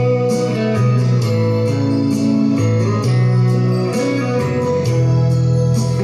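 Instrumental music with a moving bass line and a light, steady beat, without a voice.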